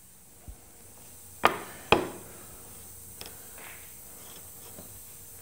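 Pieces of lumber being handled off the jointer: two sharp wooden knocks about half a second apart, then a lighter tap.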